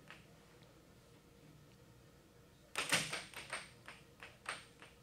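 Air hockey puck clacking against a mallet and the table rails in a quick run of sharp knocks, starting a little past halfway and stopping near the end.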